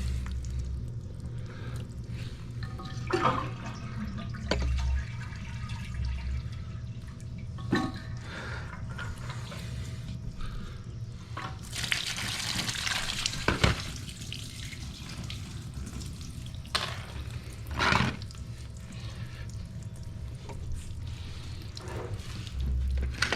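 Water running and dripping out of a toilet tank through the fill-valve hole as the old fill valve is unscrewed and pulled out, with scattered knocks of plastic parts. A louder rush of water lasts about two seconds, about halfway through.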